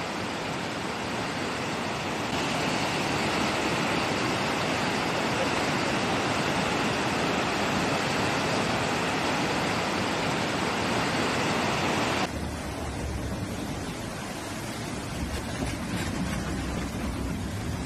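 Muddy floodwater rushing through a street in a steady wash of noise. About twelve seconds in it cuts to a duller, deeper rush from another stretch of flood.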